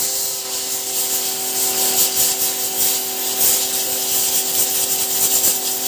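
1,800-watt electric high-pressure washer running flat out: a steady motor-and-pump hum under the loud hiss of the water jet as it blasts a hole through a thick styrofoam block.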